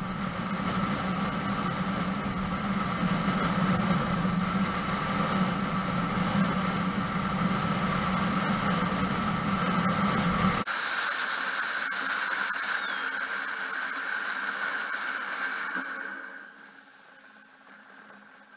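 Steady noise of a car driving, heard from inside: engine and road noise with a low hum. A little over halfway it switches abruptly to a thinner, higher hiss, which fades near the end.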